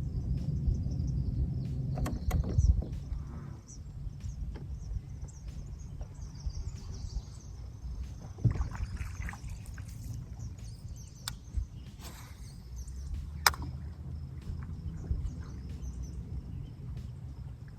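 A small fishing boat's motor running with a steady low rumble, dropping to a lower, quieter running about three and a half seconds in. A few sharp knocks and clicks of gear on the boat.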